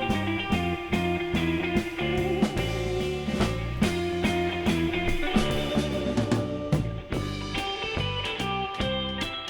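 Background music: guitar-led rock with a steady drum beat.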